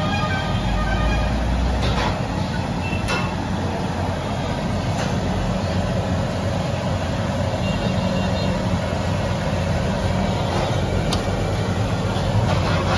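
Steady hiss and rumble of battered cauliflower deep-frying in a large steel kadai over gas burners, with a few sharp clinks of the metal slotted spoon against the pan.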